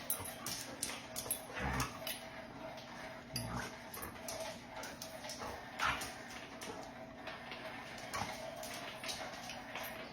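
A dog making small sounds, with scattered short clicks and knocks throughout.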